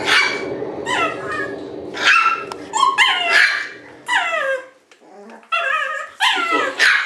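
Shiba Inu puppies yipping and squealing: about a dozen short, high-pitched calls, many sliding down in pitch, one after another with a brief lull in the middle.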